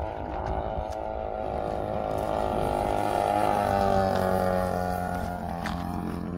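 Radio-controlled aerobatic plane's engine making a low pass: a steady drone that grows louder to a peak about four seconds in, then drops slightly in pitch and fades as the plane moves away.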